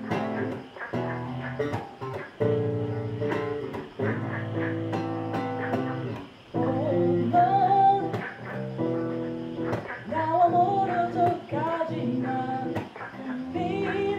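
Solo electric bass guitar played as a chordal instrument: plucked chords and low notes ringing under a higher melody line, which wavers with vibrato in the middle stretch.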